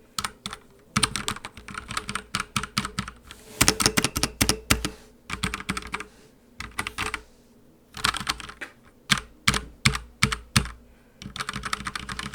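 GRAMR V2 TE 75% mechanical keyboard with red switches being typed on for a sound test: runs of rapid keystroke clicks in bursts, with brief pauses between them.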